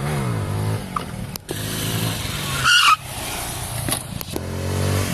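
Motorcycle engine revved in repeated bursts, its pitch rising and falling during stunt riding, with a brief loud high-pitched squeal about halfway through that cuts off sharply.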